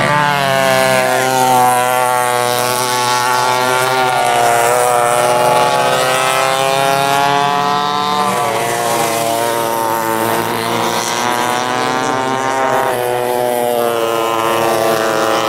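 Several vintage rear-engine racing karts' two-stroke engines running hard at high revs, their pitch rising and falling as the karts go through the corners.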